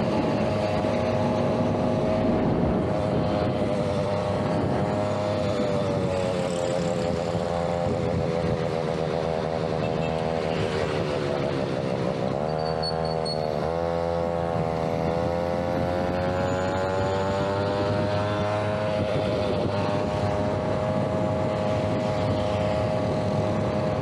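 Huasheng 63cc two-stroke engine of a Chinaped X5 stand-up scooter running under way. Its revs sag and dip sharply about halfway through, then rise again over the next few seconds.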